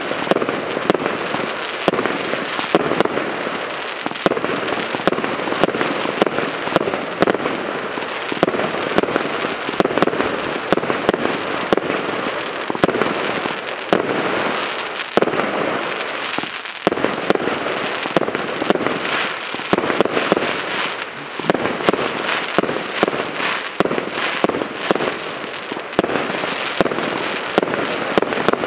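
A 200-shot fireworks cake (battery of mortar tubes) firing a rapid, unbroken barrage: a dense run of sharp launch thumps and aerial bursts, one after another with no pause.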